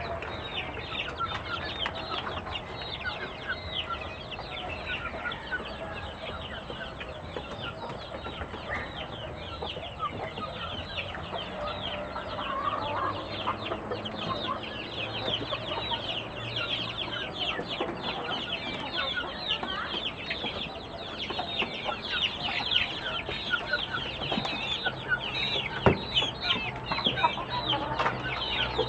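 A flock of chickens peeping and clucking, a dense, unbroken chatter of many short high chirps.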